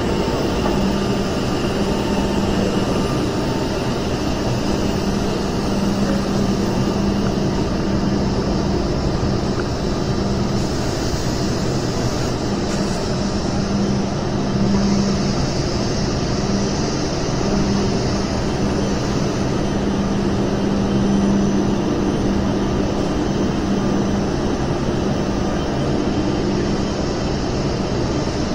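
Steady ambience of a large exhibition hall: a constant dense wash of noise with a low hum that swells and fades at times.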